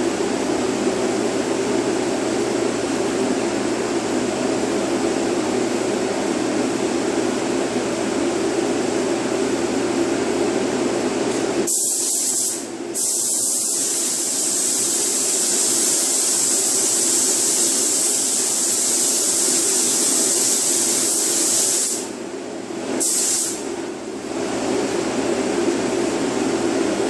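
A steady fan-like drone, then a paint spray gun hissing loudly for about ten seconds as it lays down the first coat of black base coat, with a short break just after it starts and one brief last burst a second later.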